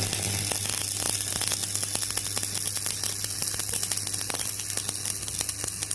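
Electric arc welding: a steady crackling hiss that starts suddenly, over a low electrical hum.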